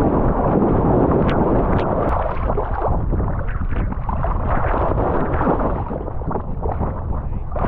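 Water splashing and sloshing around a swimming dog, heard from a camera worn on its back just above the water line, with wind buffeting the microphone. The noise is loud and continuous, easing a little near the end.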